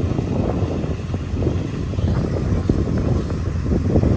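Kubota DC-105X combine harvester's diesel engine running steadily under load as it cuts rice, a low drone mixed with wind buffeting the microphone.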